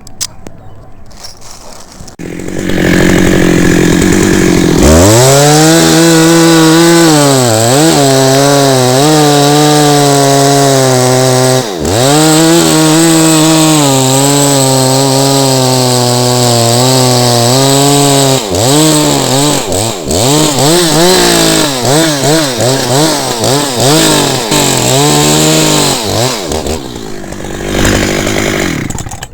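Chainsaw starting about two seconds in, then run at high revs, its pitch sagging and recovering as the chain bites into the wood. Through the second half there is a run of shorter rev changes, and the saw drops back to idle near the end.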